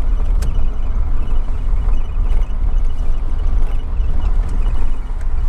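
Steady low rumble of a vehicle being driven, with a single sharp click about half a second in.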